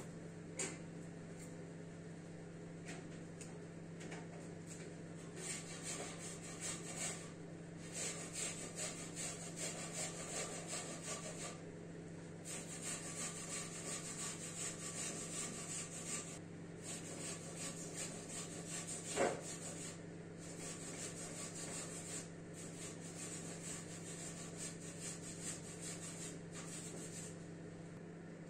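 Soft taps and rubbing of fingertips on a tablet touchscreen, in runs of quick light ticks, over a steady low hum. One sharper click about 19 seconds in.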